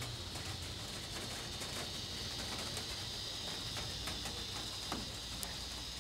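Steady high-pitched insect chorus over a low, even rumble, with a few faint ticks.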